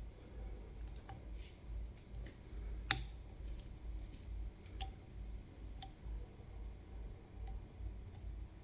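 Irregular small metallic clicks of a lock pick and tension wrench working the pins of a CISA AP3 pin-tumbler lock cylinder, with one sharper click about three seconds in and two more near five and six seconds.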